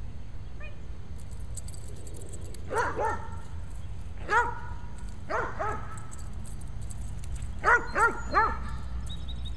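A dog barking during flirt pole play, with quick high barks in clusters: two, then one, then two, then three in a row near the end.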